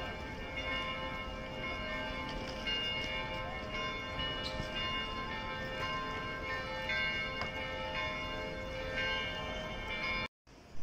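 Chiming, bell-like music playing note after note over a low wash of street noise; it cuts out abruptly near the end.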